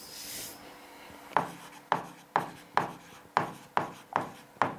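Stylus writing on an interactive whiteboard screen: a faint rub at first, then, from a bit over a second in, about eight sharp taps at two to three a second as the pen strikes the surface.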